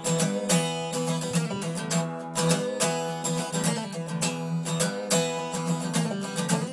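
Steel-string acoustic guitar played solo in a blues-rock riff, sharp strummed chord strokes over ringing notes.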